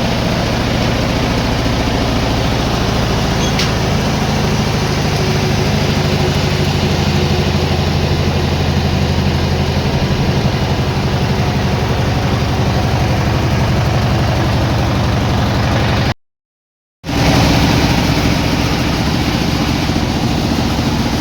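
Sawmill machinery running steadily with a low engine-like hum. It cuts out abruptly for under a second about three-quarters of the way through, then resumes with a slightly changed hum.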